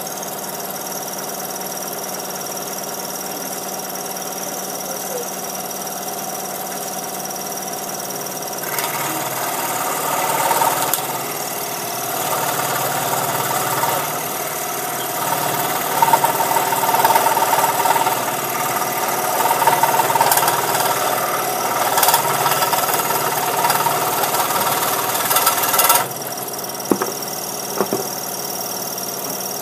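Scroll saw running with a steady motor hum; from about nine seconds in until shortly before the end its blade is cutting through a piece of wood, which is louder and noisier. Two light knocks near the end.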